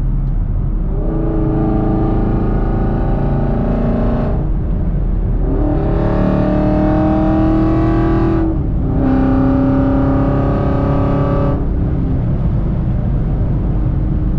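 Modified Chevrolet Camaro SS 6.2-litre V8 with Kooks headers and a Borla ATAK exhaust, accelerating hard, heard from inside the cabin. The revs climb three times, falling briefly between pulls as it shifts up, then settle to a steady cruise near the end.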